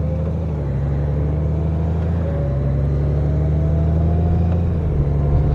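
Honda Gold Wing motorcycle cruising at about 45 mph: a steady low engine rumble under a wash of wind noise with the windshield lowered, the engine note creeping slightly higher.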